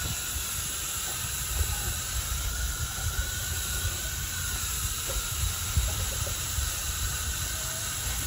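Garden hose spray nozzle hissing steadily as water is sprayed onto a straw compost pile to keep it wet, with a low rumble underneath.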